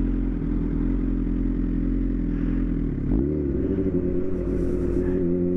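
Yamaha R1's inline-four engine running steadily under way. About three seconds in, the engine note dips briefly, then climbs and holds a little higher.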